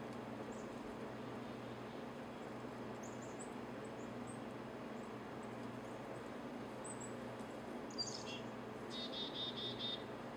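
Small wild birds chirping over a steady background hum. About eight seconds in one gives a falling call, followed by a quick run of about six short high notes near the end.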